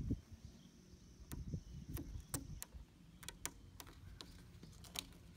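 Vinyl sticker film crackling and clicking as fingers handle and peel it around a car emblem: scattered, irregular small clicks with a few soft low thumps near the start.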